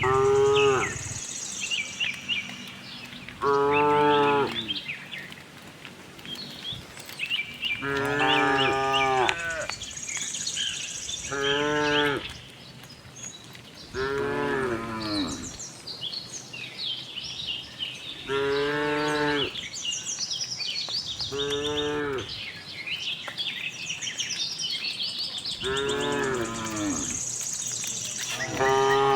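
Cattle mooing over and over, about eight moos a few seconds apart, each lasting a second or so. Birds chirp faintly behind them.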